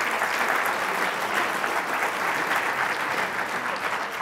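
An audience applauding: many hands clapping together at a steady level.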